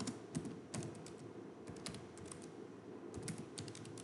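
Computer keyboard being typed on: quick clicking keystrokes in several short bursts with brief pauses between them.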